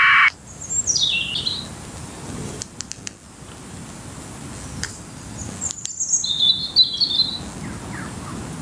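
A loud, buzzing APRS data packet from the speaker of a Yaesu FT1XD handheld radio cuts off just after the start. Then birds call in the woods: one falling call about a second in, and a cluster of chirps around six to seven seconds in.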